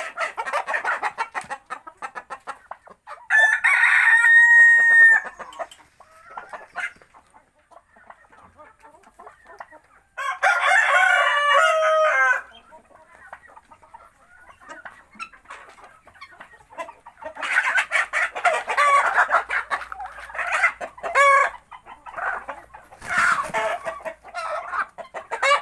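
A rooster crowing twice, long calls about three seconds in and again about ten seconds in, with chickens clucking and calling at the start and through the second half.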